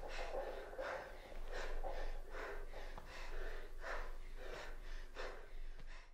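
Two dancers breathing heavily: quiet, rapid breaths about twice a second, each in or out sounding as a short airy rush.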